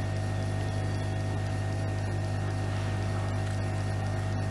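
Hot-air rework station blowing on a surface-mount chip to desolder it from a power-supply board: a steady hum with an even airy hiss.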